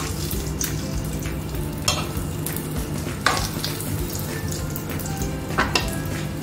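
Egg omelette with tuna filling frying in a nonstick pan with a steady sizzle. A metal spoon and a wooden spatula scrape and knock against the pan about five times as the omelette is folded over.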